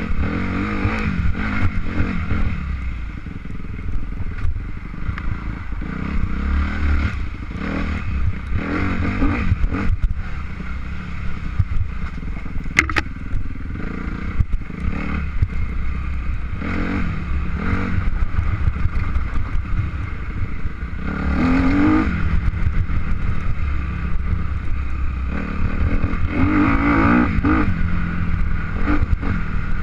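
An engine running, most likely a motorcycle's, its pitch rising and falling several times over a constant low rumble.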